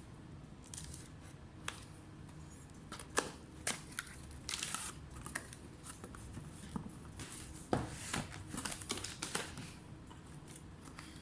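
Irregular small clicks, taps and crinkling from hands handling a laptop and its parts during disassembly. The sharpest clicks come about three seconds in and again near eight seconds, over a low steady hum.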